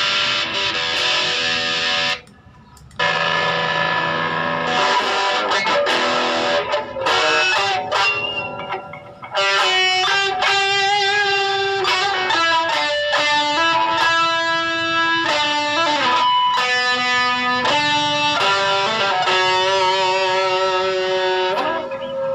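Electric guitar played through a Mooer GE100 multi-effects processor. For the first nine seconds it is a dense, gritty, distorted sound, with a short break about two seconds in. After that come clearer, ringing notes and chords that change about once a second.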